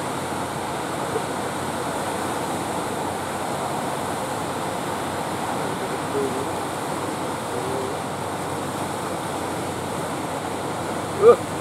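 Surf breaking and washing ashore, a steady rush of sea noise. Near the end comes one brief loud cry that rises in pitch.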